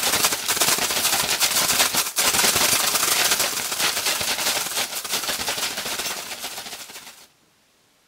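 Home-made Foley effect for a flock of bats' wings flapping, made with a household object: a dense, rapid fluttering clatter that fades away and stops about seven seconds in.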